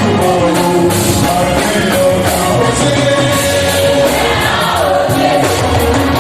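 Church choir singing a gospel song with a live band: held sung notes over a steady bass line and drum and cymbal beats.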